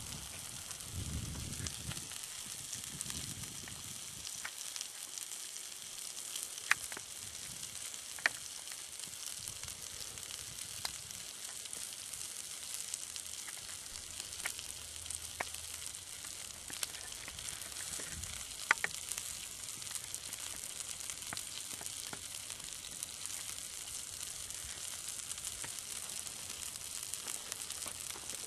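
A thick rib steak sizzling steadily on a grill plate over hot coals in a folding camp stove, with a few sharp pops.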